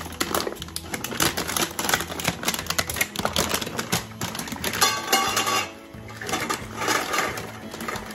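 Clear plastic bag of dried pasta shells crinkling as it is handled, a dense run of crackles and clicks, over background music.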